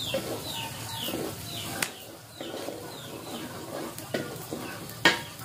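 Birds chirping repeatedly in short, high, falling notes over the low sizzle of food frying in a wok on a wood-fired clay stove. Two sharp knocks cut through, the louder one near the end.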